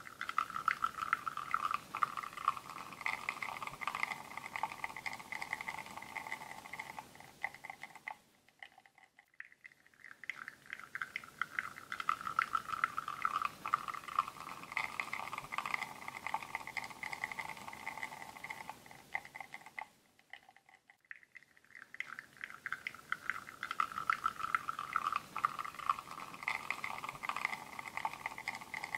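Espresso flowing from a bottomless portafilter on a La Marzocco Linea Mini into a cup: a steady crackling, trickling stream with a faint hum. It dies away twice, about eight and about twenty seconds in, and starts up again each time.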